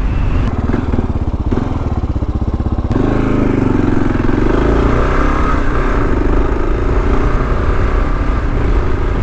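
2023 Kawasaki KLR 650's fuel-injected single-cylinder engine running as the bike is ridden, with an even pulsing for the first three seconds. About three seconds in it turns louder and rougher.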